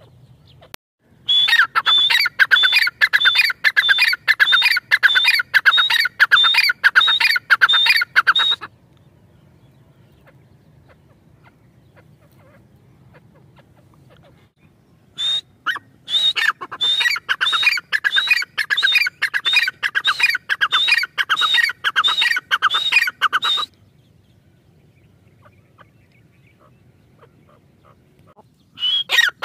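Grey francolin calling: two long bouts of loud, rapid, evenly repeated harsh notes, each lasting about seven seconds, with a pause between them. A third bout starts near the end.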